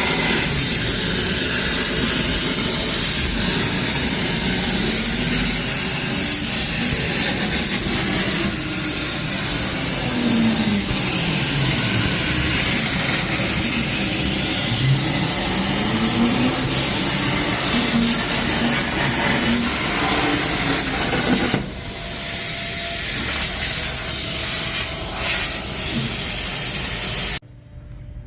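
Hypertherm Powermax 65 plasma cutter arc hissing steadily on a CNC plasma table as it cuts steel. Faint motor whines rise and fall in pitch as the gantry moves the torch along curves. The hiss cuts off suddenly near the end.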